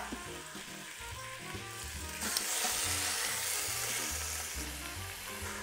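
Browned pork butt chunks sizzling as they go back into the hot Instant Pot inner pot on its sauté setting. The sizzle gets louder about two seconds in.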